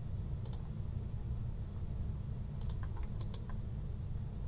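Computer mouse clicking: a few short separate clicks, each a quick press and release, one about half a second in and three close together around three seconds, over a steady low hum.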